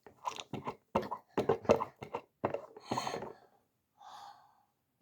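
A girl's breathy gasps and sighs: a quick run of short breaths, then one longer breath near the end.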